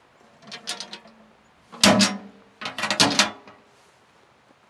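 Hinged steel lid of a trail register box swung shut. A lighter knock about half a second in, then a loud ringing metal clank about two seconds in and a second rattling clank about a second later.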